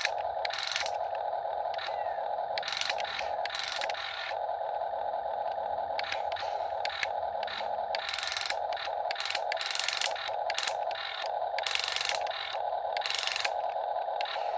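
Huina 1/14 scale RC excavator's electric motors whining in short on-off spurts as the arm and bucket are worked, with repeated bursts of scraping as the bucket digs.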